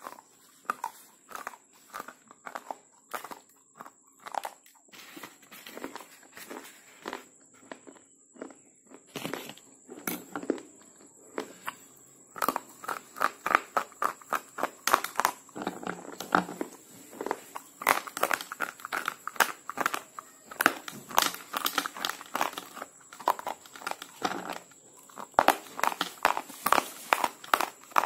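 Slate pencils being bitten and chewed close to the mouth: a run of dry, sharp crunches, a few a second at first, growing louder and busier about twelve seconds in.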